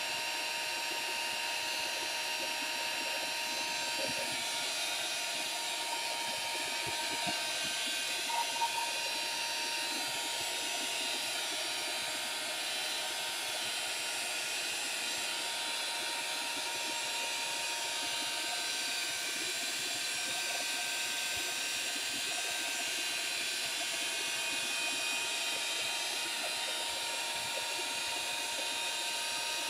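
Handheld craft heat gun blowing steadily, a constant fan-and-air rush with a faint steady whine, drying wet watercolour-powder paint on paper.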